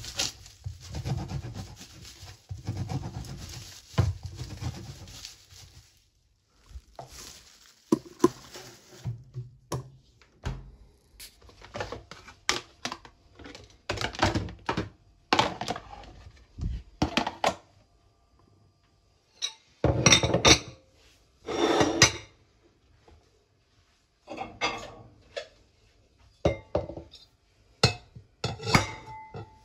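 A knife sawing through a loaf of bread in a plastic bag on a wooden board, several strokes, then a run of plastic rustling, knocks and clatter as containers and dishes are handled and set down, with two loud clatters about two-thirds of the way through.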